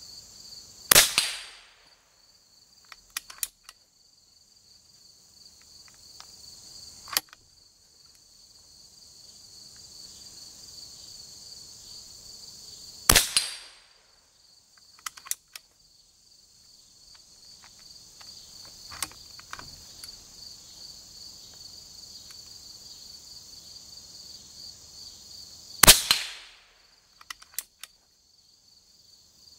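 Three loud shots about twelve seconds apart from a BinTac M457 .457-calibre big-bore PCP air rifle firing 242-grain slugs at a steel gong target, each with a short decaying tail, and a few lighter clicks in between. A steady high chirring of crickets or insects goes on underneath.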